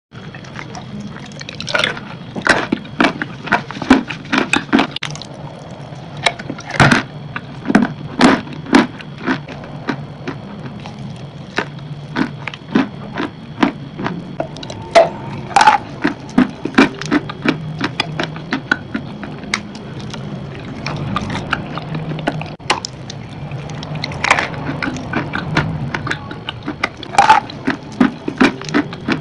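Close-miked ASMR eating: a soft white crumbly food is bitten and chewed, making irregular crunches and wet mouth smacks, with a steady low hum underneath.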